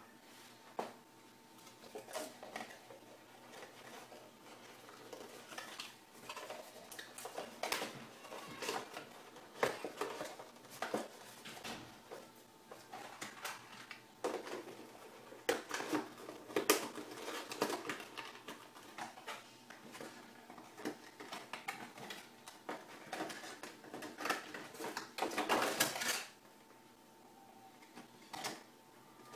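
Cardboard box parts and a clear plastic packaging tray being handled: irregular knocks, clicks, slides and crinkles, with a dense stretch of rustling about 25 seconds in. A faint steady hum runs underneath.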